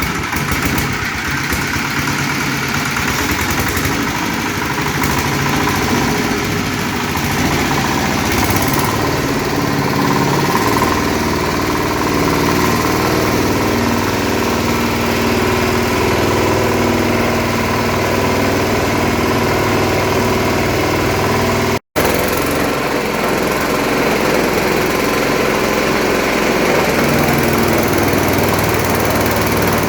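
Chicken-feather grinding machine running steadily, a loud continuous mechanical drone, broken once by a brief dropout about two-thirds of the way through.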